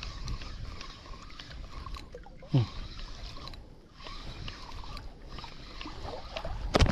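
Spinning reel being cranked to retrieve line with a small hooked grouper on, over water lapping against the boat. A brief falling-pitched sound comes about two and a half seconds in, and a loud knock right at the end.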